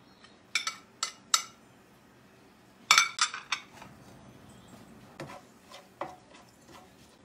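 A metal spoon clinking against a ceramic plate several times as spice powder is tapped off it, the sharpest clink about three seconds in. Near the end a few softer knocks of a spatula in the pan.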